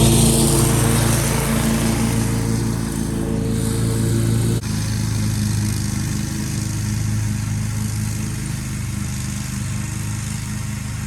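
Zero-turn lawn mower engine running steadily while mowing. The sound changes abruptly a little less than halfway through, then runs on steadily.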